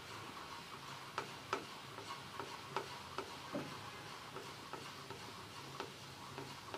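Faint, irregular ticks and taps of a wooden spatula stirring milk powder into bubbling sugar syrup in a non-stick pan, over a low steady hum.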